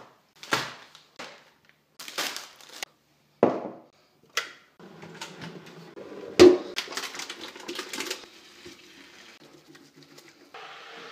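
A string of short knocks and clatters as kitchen things are handled: an egg carton on a wooden table, then a plastic colander set down in a stainless steel sink, with the loudest knock about six and a half seconds in and a quick run of clatters after it. A steady low hiss comes in near the end.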